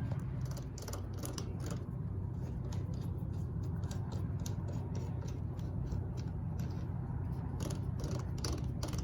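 Irregular light clicks and clinks of hand tools on metal as the handlebars of a Yamaha Blaster ATV are unbolted, over a steady low hum.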